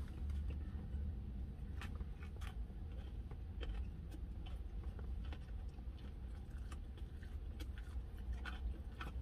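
Close-up chewing of a bite of a chicken sandwich: wet mouth clicks and small crackles at an uneven pace, over a steady low hum.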